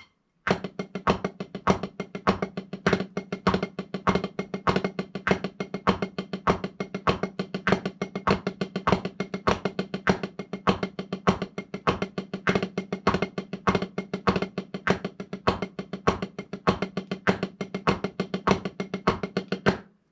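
Wooden drumsticks playing a rudiment exercise on a practice pad at 100 BPM: a steady, even stream of sixteenth-note strokes, mixing paradiddles, drag-a-diddles and flam-a-diddles, with a metronome keeping the beat.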